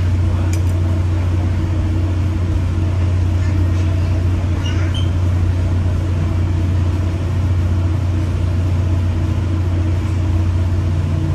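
Inside a Tri-Rail commuter train coach running at speed: a steady low hum and rumble from the moving train, unchanging throughout.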